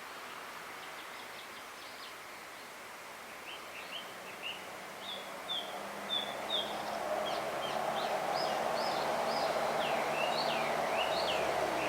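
Male blue rock thrush singing a run of short, quick whistled notes that starts about a third of the way in, the song of a male calling for a mate. A steady rumble with a low hum grows louder behind it through the second half.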